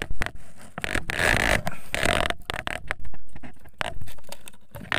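Irregular knocks, clicks and scraping, with a rushing noise for a second or so about a second in, as things are handled and moved about in a small wooden boat.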